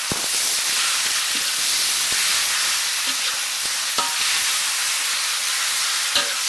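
Sliced pork and pork tongue sizzling steadily in hot fat in a wok as it is stirred. A metal spatula clicks against the pan about four seconds in and again near the end.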